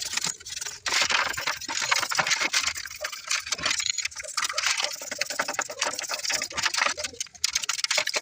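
Alternator parts being scrubbed clean of caked grime: a dense, irregular scratching that goes on without a break.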